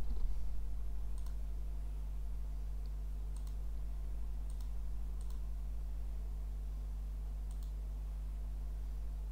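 Computer mouse clicking a handful of times at irregular intervals, single faint clicks. A steady low hum runs underneath.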